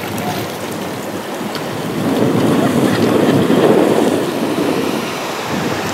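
Wind buffeting the microphone over the noise of ocean surf, getting louder for a couple of seconds in the middle.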